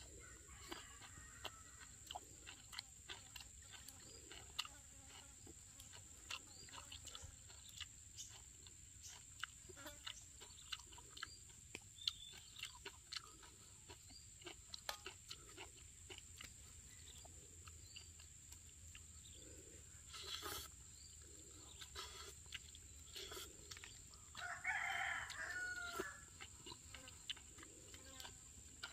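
A rooster crowing once, a call of about two seconds near the end and the loudest sound here. Faint scattered clicks of a metal spoon against a steel wok run throughout.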